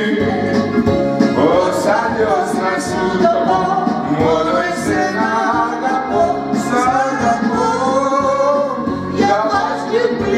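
A woman and a man singing a Greek popular song into microphones over a recorded backing track with a steady beat.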